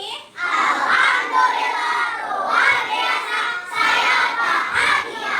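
A class of young children singing together in unison, many voices at once.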